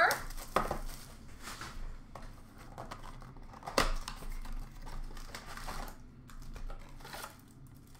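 Cardboard blaster box of hockey card packs being opened and its packs handled: scattered light clicks, taps and rustles, with one sharper snap about four seconds in.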